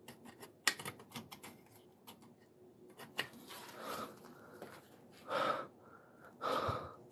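A run of small clicks and knocks, like things being handled, then a few breathy vocal sounds: short breaths or whispers, the two loudest near the end.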